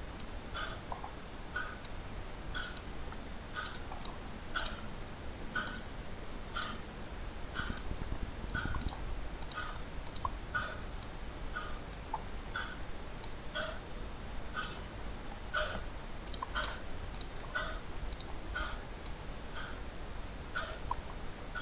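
Computer mouse clicking at irregular intervals, about one or two clicks a second, over a faint low hum.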